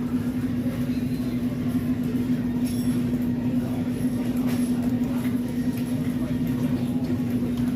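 Steady low rumble with a constant hum, the running noise heard inside a moving vehicle.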